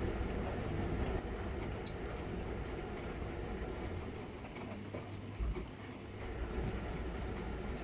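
Miele Novotronic W921 front-loading washing machine running a wash cycle: the motor hums steadily and water sloshes in the drum. About five seconds in the sound dips briefly, with one low thump, then picks up again.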